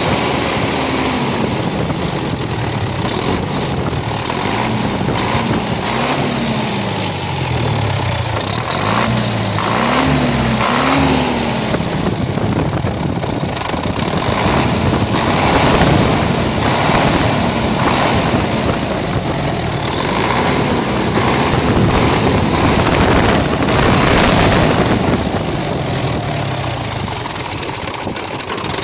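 MTZ-80 tractor's four-cylinder diesel engine running steadily, revved up and back down several times in quick succession a few seconds in. It is running after the owner traced its blue smoke and exhaust backfiring to a faulty check valve and replaced it.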